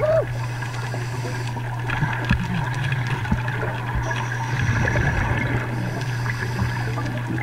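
Underwater sound heard through a camera's housing: a steady low hum under a wash of water noise, with a few faint knocks as the diver struggles on the sand.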